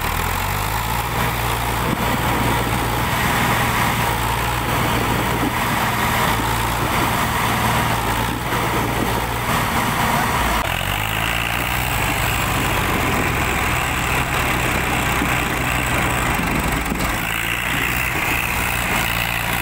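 Swaraj tractor's three-cylinder diesel engine labouring under heavy load while pulling a stuck, log-laden trolley out of a deep hole; the engine note rises about half a second in and shifts again near the middle and near the end.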